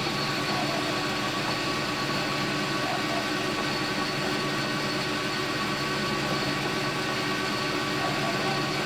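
Metal lathe running steadily: an even machine hum with a few constant high whining tones from the motor and spindle drive.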